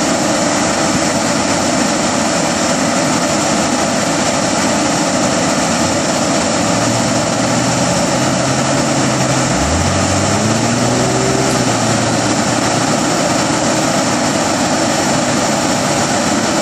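Heavy wrecker's diesel engine running steadily as it powers the boom winch lifting a load, under a constant wash of noise. Around the middle an engine note rises in pitch for a few seconds.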